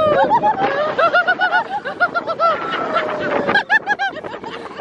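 High-pitched laughter: quick, repeated giggling syllables in two runs, with a short break in the middle.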